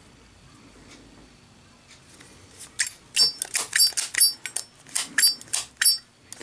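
High-polish Zippo windproof lighter's metal lid being flicked open and snapped shut over and over: a quick run of sharp metallic clicks, several with a brief high ring, starting about two and a half seconds in.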